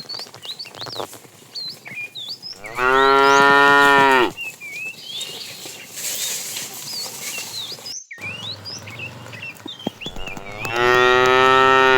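A cow mooing twice, each a long, steady call of about a second and a half that sags at the end, the second coming about eight seconds after the first.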